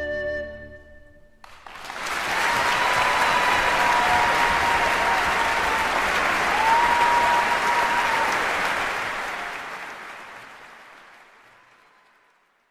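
Soft flute-like music fades and stops about a second and a half in. A crowd then bursts into applause and cheering, with two long whistles in the middle, and the applause slowly fades away to nothing.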